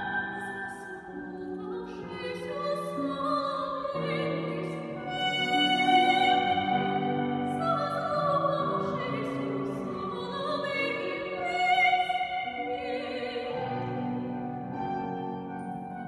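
Operatic soprano singing a classical romance with wide vibrato, her sustained notes rising high, over a quieter instrumental accompaniment.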